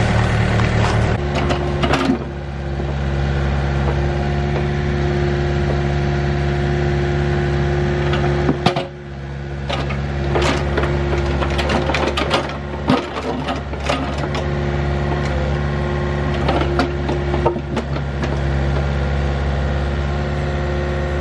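Diesel mini excavator running, its engine note changing about a second in as it is put to work, with the bucket knocking and scraping against large rocks several times as it moves them.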